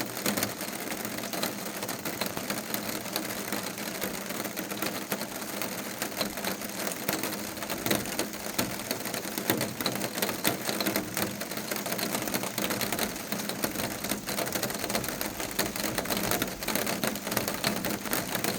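Steady rain, full of the quick ticking of individual drops striking a surface.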